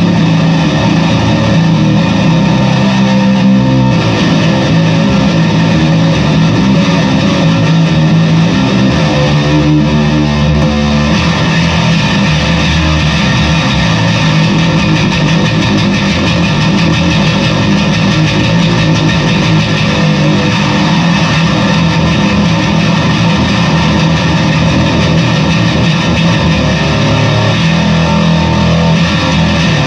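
Fender Squier Bass VI six-string bass played through stacked fuzz pedals, giving a thick, heavily distorted tone. The notes change throughout, with no break in the playing.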